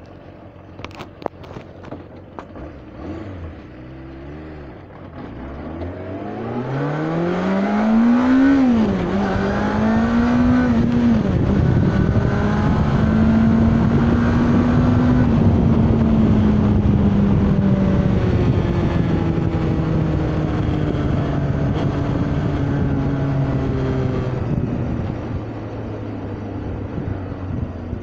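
Yamaha 600cc motorcycle engine pulling away and accelerating. The revs climb steeply, drop sharply at a gear change, climb again and drop at a second change, then settle into a steady drone that slowly falls toward the end. Wind rushes over the microphone once the bike is moving.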